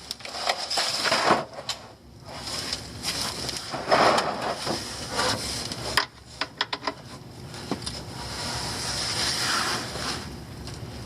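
Irregular rubbing, rustling and scraping handling noises, with several sharp clicks, the loudest burst about four seconds in and a quick cluster of clicks around six to seven seconds in.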